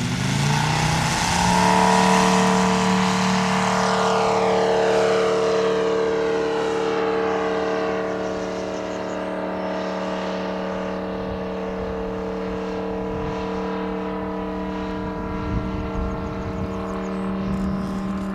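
Model aircraft engine throttled up from idle, rising in pitch over the first second or so, then running at a steady high pitch at full power and slowly getting fainter.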